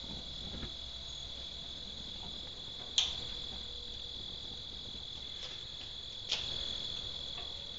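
Gas grill's igniter being worked, giving two sharp clicks about three seconds apart, over a steady high-pitched tone.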